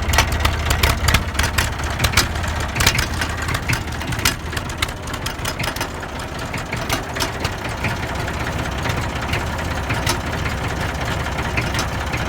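Massey Ferguson 35 tractor engine idling shortly after a cold start. It runs with sharp, irregular knocks at first and settles into a steadier idle after about six seconds.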